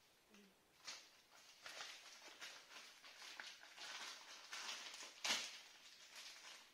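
Irregular, soft rustling and crinkling of packaging being handled, with a sharper click about five seconds in.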